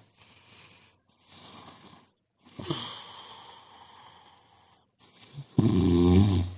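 A sleeping person snoring: several breaths with short pauses between them, then one loud, low snore near the end.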